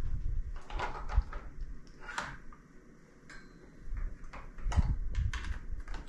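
Handling noise on an unpowered telescope equatorial mount: a scattered run of short knocks, clicks and low thumps as hands work at the mount head, quieter around the middle.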